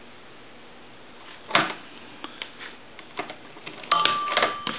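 Plastic modular telephone plug and cord clicking as they are handled and plugged into a line jack, a few separate clicks. About four seconds in, a short steady ringing tone sounds over more clicks as the line is connected.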